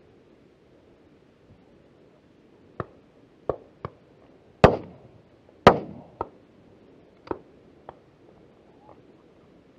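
Shotgun fired twice at game about a second apart, two loud cracks with a short ringing tail, among several fainter, more distant shotgun shots.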